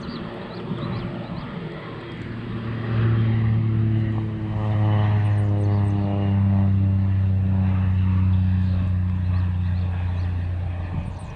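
Small propeller airplane flying low overhead. Its engine drone builds over the first few seconds and is loudest through the middle as it passes. The pitch drops a little as it goes by, and the drone fades near the end.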